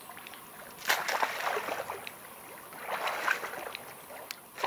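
Water splashing and sloshing in two bursts, about a second in and again around three seconds, with small knocks among them.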